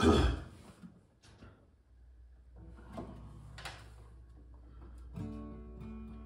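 Acoustic guitar being handled: a loud hollow thump right at the start, a few light knocks and rustles, then about five seconds in the first plucked notes ring out as playing begins.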